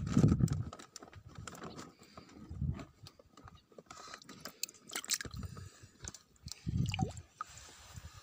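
Muffled rubbing and knocking of a hand against the phone as it handles a basin, with scattered small clicks. Low thumps come at the start, again between two and three seconds in, and again about seven seconds in.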